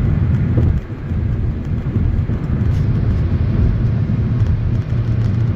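Cabin noise of a car driving on a highway: a steady low rumble of road and tyre noise, with a brief dip about a second in.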